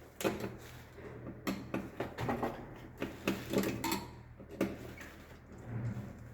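Irregular clicks, taps and light knocks of hands, tools and wires being worked into the terminals of a distribution board, over a faint low hum.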